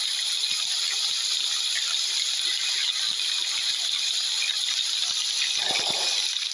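Heavy rain falling steadily, a dense hiss of many drops pattering. There is a brief cluster of louder knocks near the end.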